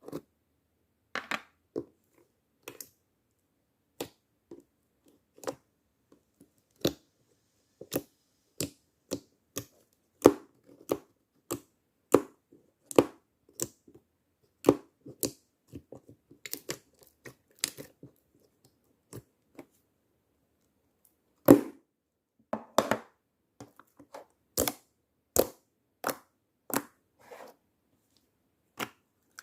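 Slime being squeezed and poked by hand, making irregular sharp pops and crackles, a few a second with short pauses.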